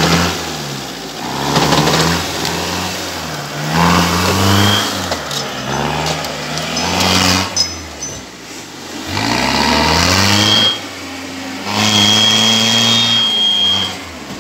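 Off-road 4x4 engines revving up and dropping back about five times as the vehicles work through deep muddy ruts. A thin high whine rises above the engine note a few times.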